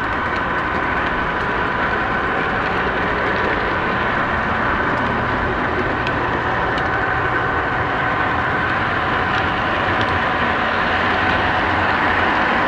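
O-gauge model train running along ScaleTrax track: a steady whine over a rolling rumble, with occasional faint clicks.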